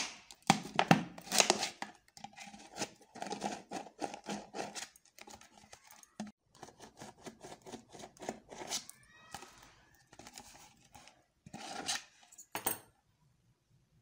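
Small scissors cutting into a thin plastic soft-drink bottle: a quick run of sharp snips and blade clicks with crinkling of the plastic, stopping near the end.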